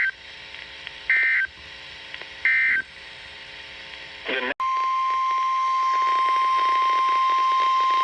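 NOAA Weather Radio EAS signalling: the end of one short SAME digital data burst and two more about a second apart, the end-of-message code closing a severe weather warning. After a brief warble and a split-second dropout, the steady 1050 Hz weather radio warning alarm tone begins and holds as the next warning starts.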